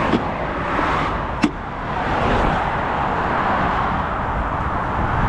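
Steady noise of highway traffic passing close by, with a sharp click about a second and a half in and a lighter one just after the start.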